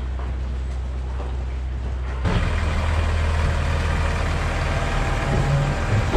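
Steady low engine drone. About two seconds in it gives way to a louder tractor engine running as it tows a livestock trailer.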